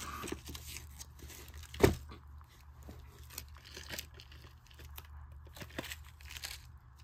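Shrink-wrapped VHS tapes being handled: faint crinkling of the plastic wrap with scattered small clicks, and one louder knock about two seconds in.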